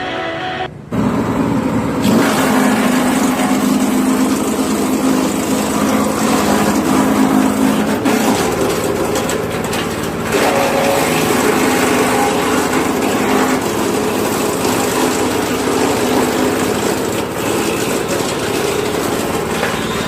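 Petrol engine of a wood chipper-shredder running hard, cutting in sharply about a second in, with a dense, noisy sound over the engine note that shifts in level now and then.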